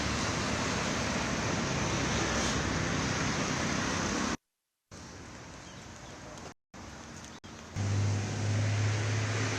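Steady road traffic noise, broken twice by brief dead-silent gaps where the footage is cut. A strong low, steady engine hum joins near the end.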